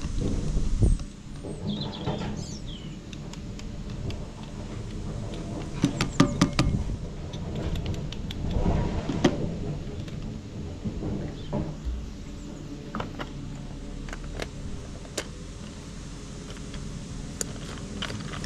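Steady low machine hum, with scattered clicks and crunches as a grain sample is twisted and ground in a small hand grain grinder for a moisture test. The crunching is loudest about six and nine seconds in.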